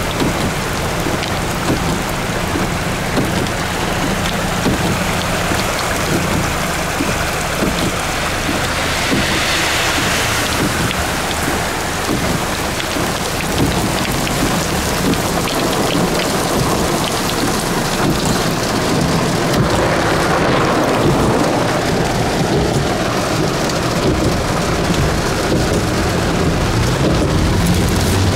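Heavy downpour: a steady, dense hiss of rain falling on surfaces, swelling briefly about a third of the way in.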